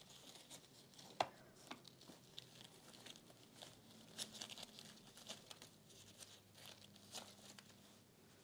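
Faint rustling and crinkling of roses being handled and set into an arrangement, with one sharp click about a second in.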